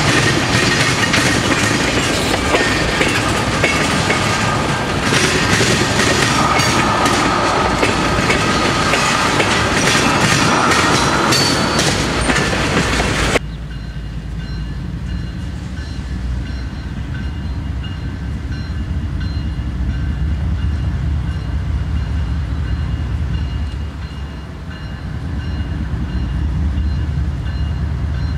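Freight train tank cars rolling past close by: loud, steady wheel-on-rail noise with clickety-clack over the rail joints. About halfway through it cuts off suddenly, and a lower, quieter rumble of CN diesel locomotives approaching from a distance takes over.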